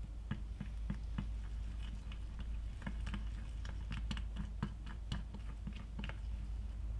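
A tiny utensil stirring a soft white mixture in a small glass bowl, clicking and scraping against the glass in quick, irregular ticks that stop about six seconds in. A steady low hum runs underneath.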